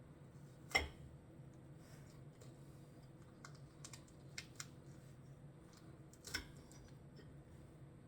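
A knife cutting open a Bleeding Jigsaw chili pod, a tough-skinned pod for its kind: sharp clicks and knocks, the loudest about a second in and another about six seconds in, with a few lighter clicks between.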